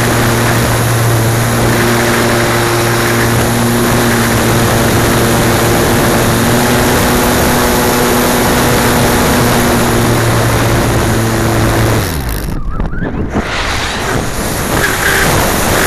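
Loud rush of air over an onboard keychain camera on a slope-soaring RC glider in flight, with a steady low hum under it. About twelve seconds in, the hum stops and the rush briefly drops away as the glider comes down low, then the noise picks up again.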